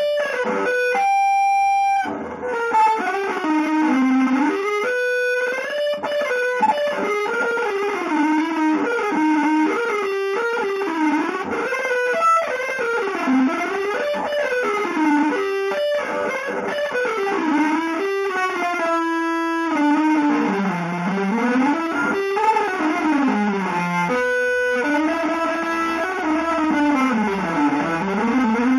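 Solo electric guitar played through effects, improvising a single line of smooth pitch glides that dip and rise again in repeated arcs, broken now and then by a brief held note.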